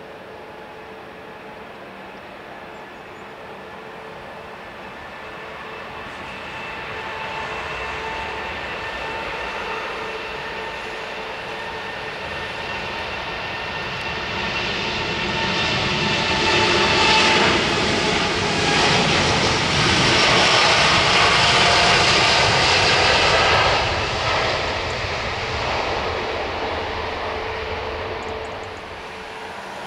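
Twin jet engines of a LATAM Boeing 787 rolling along a wet runway, growing steadily louder as the airliner comes close, loudest past the middle, then fading as it moves away.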